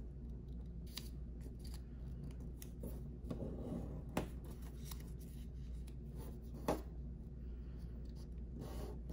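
Paper square being folded and creased by hand: soft rustling with a few short, sharp crinkles, over a low steady hum.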